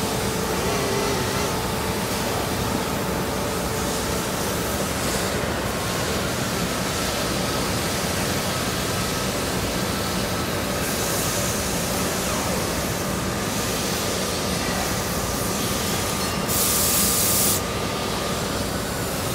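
Factory floor in heavy activity: a dense, steady din of running machinery with faint whining tones in it. Brief hisses come and go, and a loud hiss lasting about a second sounds near the end.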